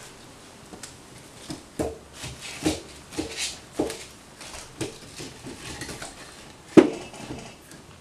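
Split firewood being loaded into an iron wood stove's open firebox: a run of irregular wooden knocks and clunks as logs hit the stove and each other, the loudest about seven seconds in.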